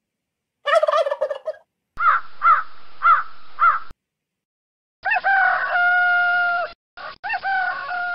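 Farmyard poultry calls, spliced together as separate clips that start and stop abruptly: a short burst of calls, four rising-and-falling squawks, then a long rooster crow that breaks off briefly and picks up again.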